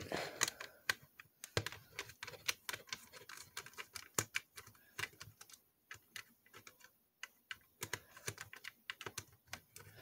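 Faint, irregular small clicks and ticks of a Torx screwdriver turning a screw out of a plastic Xbox One controller shell, with the hands regripping the driver and the controller as they go.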